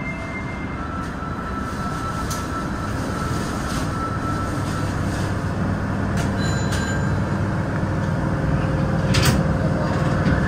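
Osaka Metro 30000 series subway train heard from the front of the car: a steady rumble and hum that slowly grows louder, with a low hum coming in about halfway and one sharp click near the end.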